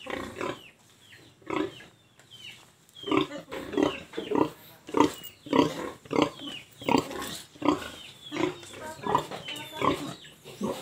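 Domestic pigs grunting: a few separate grunts, then from about three seconds in a steady run of short grunts at about two a second.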